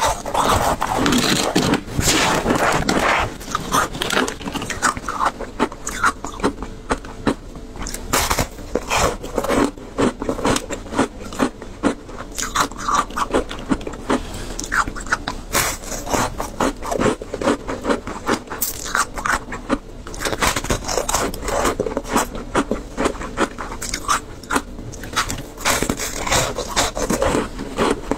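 Close-miked biting and chewing of shaved ice chunks coated in passion fruit pulp: a dense run of sharp, crackling crunches with brief pauses between mouthfuls.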